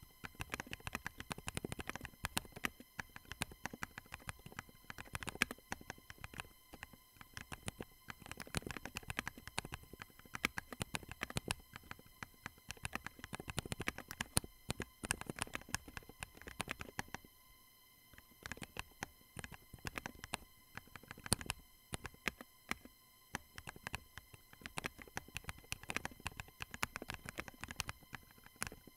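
Typing on a Trident40 40% mechanical keyboard with Durock JWK Semi Silent linear switches (62 g) and Drop MT3 Operator keycaps: a fast, irregular clatter of keystrokes with a short break a little past halfway. The switches are damped only on the return stroke, so each press bottoms out with a normal clack while the key coming back up is quieter.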